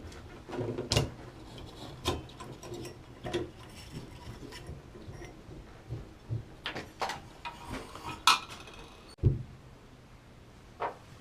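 Hand tools clinking, knocking and scraping irregularly on an old Moen push-pull shower diverter valve as it is worked loose for removal, with a dull thump about nine seconds in.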